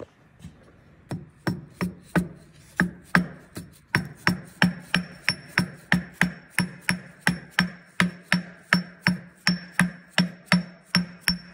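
Green plastic dead-blow hammer tapping the drive gear onto the shaft of an air brake compressor, about three blows a second. The blows start light and become loud about a second in, each with a short metallic ring.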